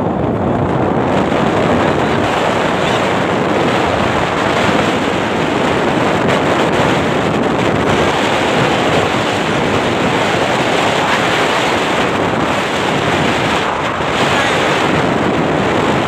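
Wind buffeting a phone's microphone while riding on a moving motorcycle, a steady loud rushing noise.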